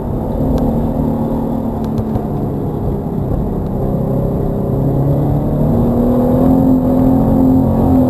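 Toyota GT86's 2.0-litre FA20 flat-four boxer engine heard from inside the cabin, pulling in second gear. The engine note eases a little as the revs drop through a corner, then rises and grows louder as the throttle opens again over the last few seconds.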